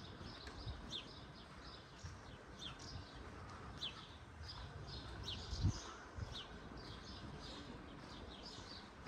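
Small birds chirping over and over in short, high calls, several overlapping, over a low outdoor rumble. A single low thump about halfway through.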